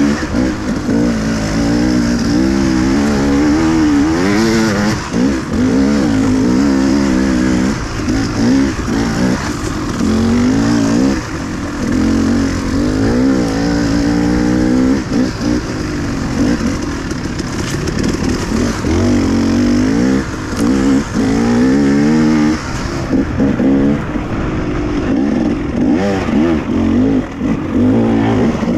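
Dirt bike engine being ridden, its revs constantly rising and falling with throttle changes.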